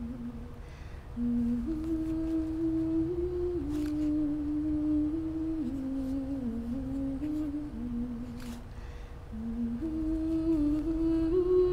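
A voice humming a slow melody in held, stepping notes, with a couple of faint knocks; a second, higher part joins near the end.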